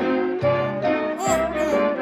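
Background music: held melody notes over a repeating low bass note.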